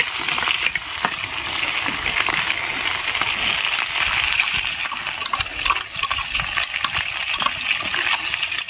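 Pork leg pieces sizzling in oil in a steel wok over a wood fire: a steady frying hiss with many scattered pops and crackles.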